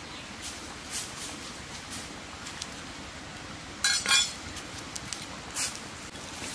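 A woven tray holding a dish and eggs set down on a flat stone, with a sharp clink and a short ring about four seconds in. A stream runs steadily underneath.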